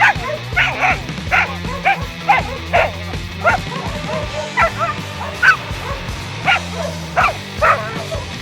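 West Siberian laika barking over and over, about a dozen sharp barks at uneven intervals, with music playing underneath.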